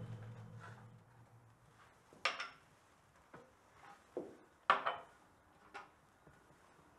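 Tea service being handled: a metal serving tray, teapot and small tea glasses clink and knock as they are picked up and set down, about half a dozen sharp clinks, the loudest a little after two seconds and near five seconds in.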